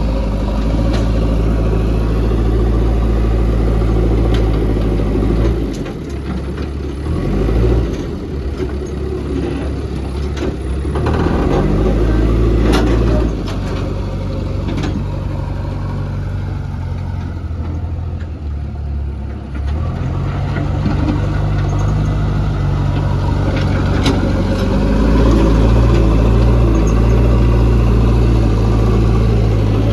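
JCB 3DX backhoe loader's diesel engine running under work, its note dropping and rising several times as the load and throttle change, with a few sharp knocks in between.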